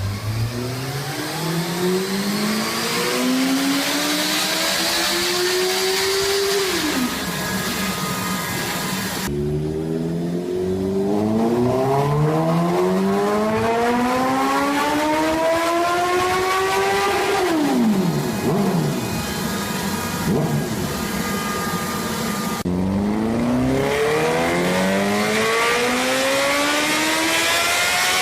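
Honda CBR650F inline-four engine revving at full throttle in three long, steady climbs in pitch, each one ending in a sudden drop as the throttle shuts: dyno pulls.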